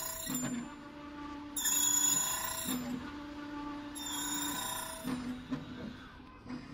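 Key-cutting machine cutting a key blank: the motor hums steadily and the cutter bites into the metal in high-pitched, ringing bursts about every two seconds, loudest about two seconds in.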